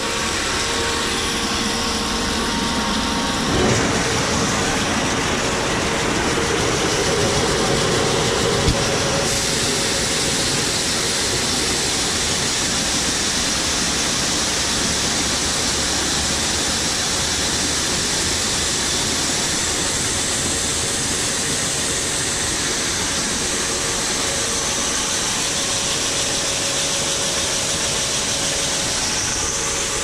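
An electric grain auger starts up about three and a half seconds in and runs steadily. From about nine seconds, shelled corn pours from a hopper-bottom trailer's gate into the auger hopper with a steady hiss.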